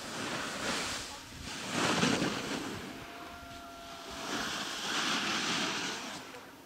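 Wind buffeting the microphone outdoors, a rushing noise that rises and falls in several gusts.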